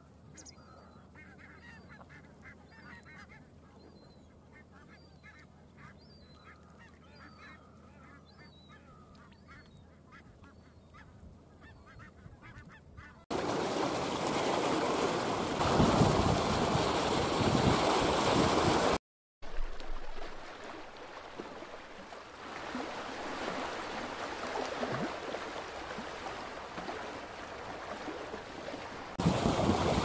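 A distant flock of birds giving many short, repeated calls over otherwise quiet surroundings. About thirteen seconds in, this gives way to a loud, steady rush of wind and waves at the shoreline, broken by a brief dropout around nineteen seconds and growing louder near the end.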